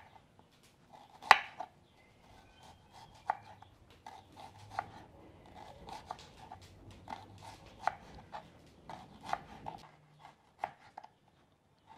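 Kitchen knife slicing an onion into thin slices: a run of irregular chopping strokes, about two or three a second, with one loud cut about a second and a half in.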